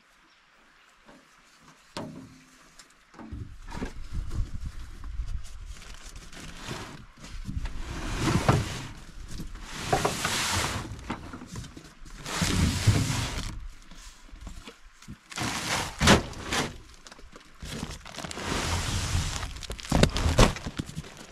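Gear being unloaded from a pickup truck bed: a large cardboard box scraped and slid out over the bed, with several sharp knocks and thumps, and footsteps crunching on gravel near the end.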